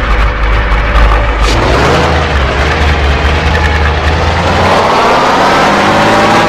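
A vehicle engine sound running loudly with a heavy low rumble, its pitch rising near the end as it revs up.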